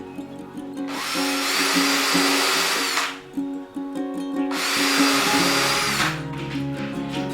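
Power drill running in two bursts of about two seconds each, with a steady high whine, over acoustic guitar background music.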